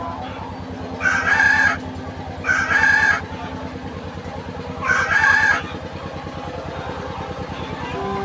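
Chickens in a layer house calling three times, each call under a second long, over a steady low mechanical hum.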